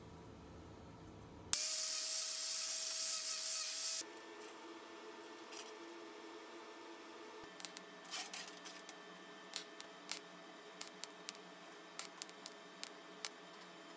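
About a second and a half in, a loud steady hiss lasts some two and a half seconds and cuts off. Then comes a run of short sharp clicks and crackles, single and in quick clusters, from a TIG torch striking tack welds on a small wire grate.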